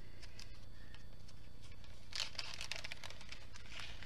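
Faint handling of diamond-painting tools on a table: a few light clicks, then a soft rustle of a small plastic bag of drills from about two seconds in, over a steady low hum.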